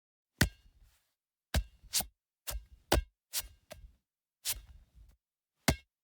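A series of sharp taps, irregularly spaced, about nine in six seconds, with dead silence between them.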